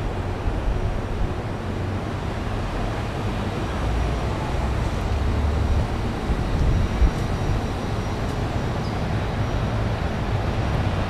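Diesel truck engine idling steadily, a low rumble, with a brief louder knock about seven seconds in.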